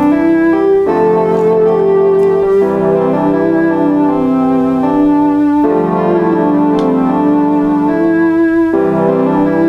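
A MIDI keyboard synthesizer playing back a two-track sequence from an Amiga sequencer: sustained chords that change every two to three seconds, with a melody line moving note by note over a held bass tone.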